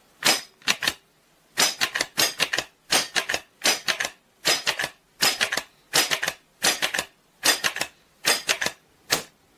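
Pump action of a Gamo G-1200 CO2 air rifle being worked over and over: a group of two or three sharp metallic clicks about every 0.8 s, about a dozen times.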